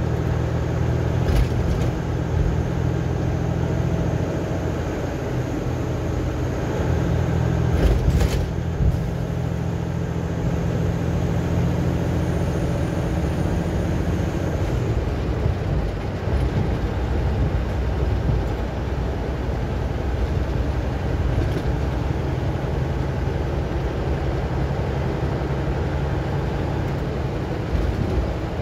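Steady engine drone and tyre and road noise heard inside a vehicle's cab at highway speed, with one brief thump about eight seconds in.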